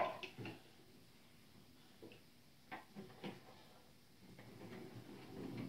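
Light clicks and knocks of wooden toy train-set pieces being handled and set down: a few taps in the first second, a couple more around three seconds in, then a soft rustle near the end.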